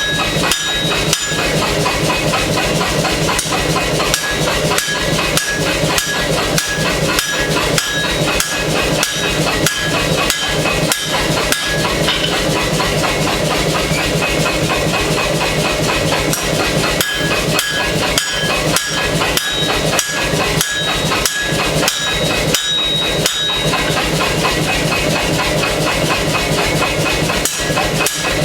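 Fast, steady hammer blows on hot steel while forging a knife blade, with a high ringing tone over the strikes. There is a short break a little before the end.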